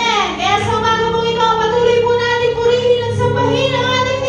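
A live church worship band playing a praise song through a PA: singers hold long sung notes over keyboard, guitars, bass and drums.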